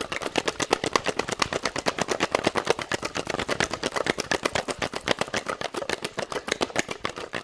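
Metal cocktail shaker shaken hard with a single large ice cube inside, the cube knocking against the tins in a rapid, steady rhythm.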